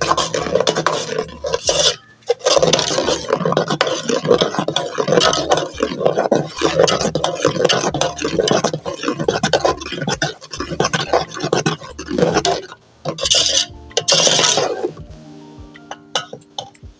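A cup scraping and clinking against a metal pot in rapid, uneven strokes, the sound of hot water being scooped out to measure it, over soft background music.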